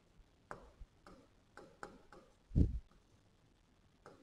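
Pen or stylus writing on an interactive display screen: light, irregular ticks and taps as a word is written, with one duller thump about two and a half seconds in.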